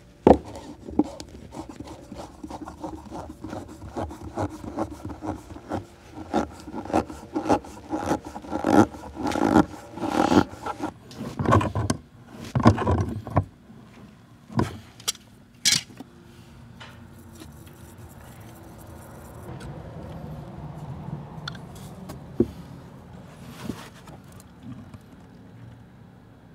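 PVC male pipe adapter wrapped in Teflon tape being screwed into the plastic bulkhead fitting of a settlement tank: a long run of short plastic scraping and rubbing strokes with clicks as it is turned, then a few sharp clicks as tongue-and-groove pliers grip and tighten it. It goes quieter for the last several seconds.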